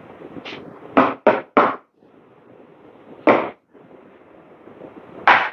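Short, sharp knocks or bursts of handling noise at an espresso machine: three in quick succession about a second in, one a little past three seconds, and three more near the end, over a steady machine hum.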